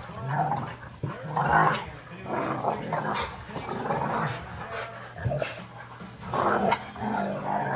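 Dogs play-fighting, growling in short repeated bursts, about one a second.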